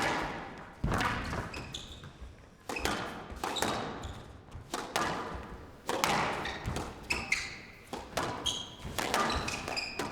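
Squash rally: racket strikes and the ball thudding off the court walls about once a second, each hit ringing briefly, with short high squeaks of players' shoes on the court floor.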